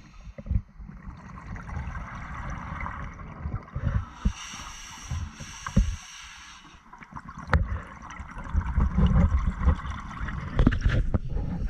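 Scuba breathing through a regulator underwater: a hiss of inhalation about halfway through, and gurgling rumbles of exhaled bubbles.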